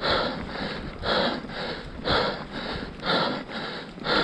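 Heavy, rhythmic breathing of a mountain-bike rider exerting hard, about one strong breath a second with softer ones in between.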